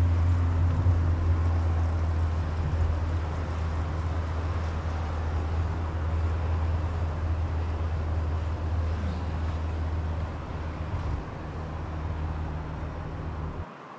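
Cabin noise of a moving car: a steady low engine and road rumble. It eases a little about ten seconds in and drops away just before the end.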